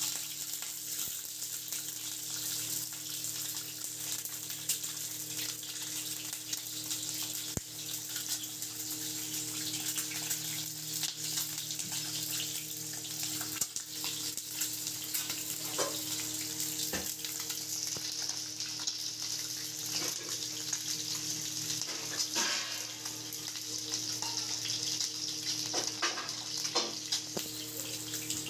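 Peeled hard-boiled eggs frying in hot oil in an aluminium kadhai: a steady sizzle with scattered pops and crackles.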